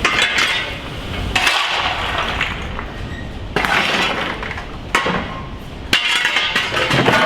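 A series of sharp clinks and knocks, four or five over several seconds, each followed by a short rushing noise.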